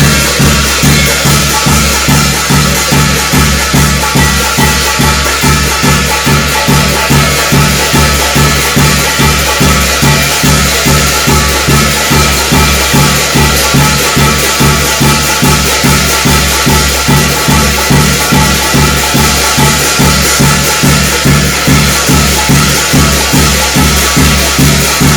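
Korean shamanic gut ritual percussion: drum with clashing cymbals beating a steady, fast, even rhythm.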